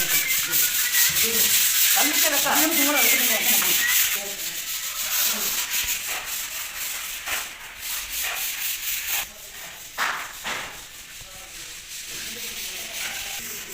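Hand sanding with sandpaper on a wall: quick, rhythmic scratchy rubbing strokes. They are loudest for the first four seconds, then lighter and more broken.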